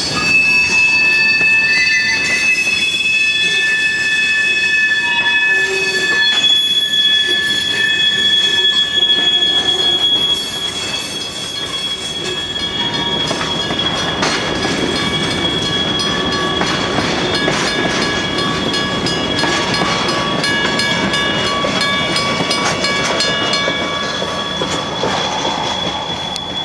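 Freight train hopper and tank cars rolling past, their wheels squealing with a steady high-pitched squeal. From about halfway through, a fast run of clicking from the wheels is added.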